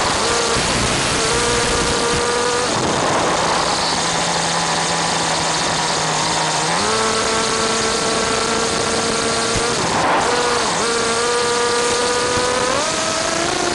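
Steady static hiss from a cheap wireless camera's audio link, over the high-pitched whine of a small nitro RC car engine with a tuned pipe. The whine holds steady pitches, drops out briefly a few seconds in, steps up about halfway through, dips for a moment and climbs again near the end as the throttle changes.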